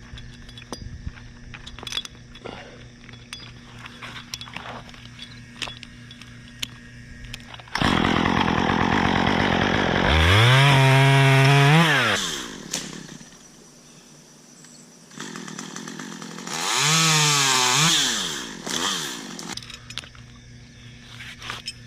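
Chainsaw starting up suddenly about a third of the way in. It is revved up to full throttle twice, dropping back to a low idle in between, and is shut off shortly before the end.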